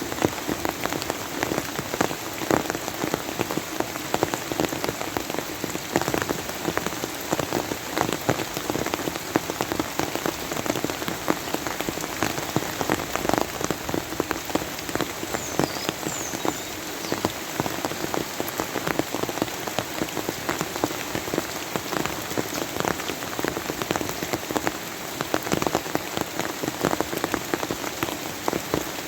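Steady rain falling, with a dense run of individual drops striking a nearby surface.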